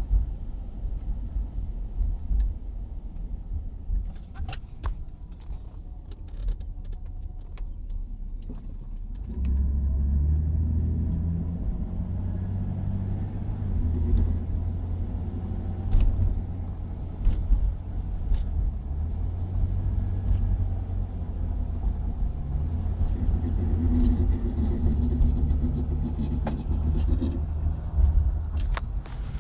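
Oldsmobile 88 running on the road with a steady low rumble that steps up in level about a third of the way in, with sharp intermittent rattles, a quick flurry of them before the rise and a few single ones later. The rattle comes at gear shifts and is placed by the owner in the passenger seat-belt area or possibly the floor.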